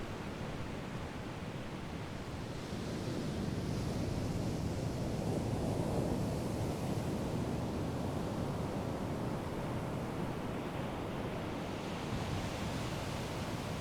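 Sea waves washing onto the shore: a steady rush of surf that swells a few seconds in, peaks, then eases back, with a fresh wash building near the end.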